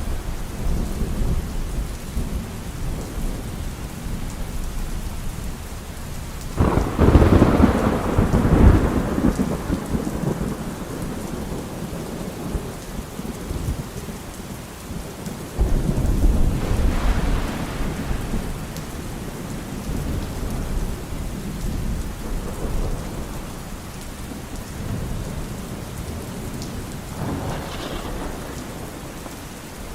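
Steady heavy rain with thunder. A loud rumble of thunder comes about seven seconds in, another around sixteen seconds, and a fainter one near the end.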